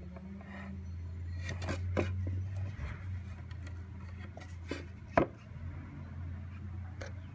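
Wooden plank being handled: short knocks and rubbing of wood and fingers, with a sharper knock about five seconds in, over a steady low hum.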